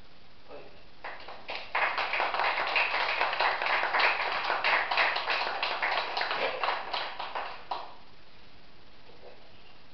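A small audience applauding: the clapping starts about a second and a half in, holds for about six seconds and dies away near the end.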